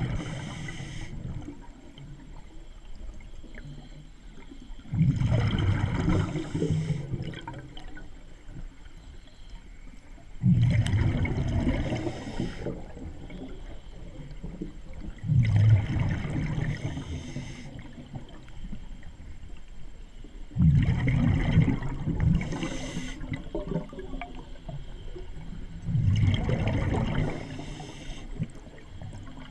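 Scuba diver breathing through a regulator underwater: a rush of exhaled bubbles about every five seconds, each lasting a second or two, with quieter gurgling in between.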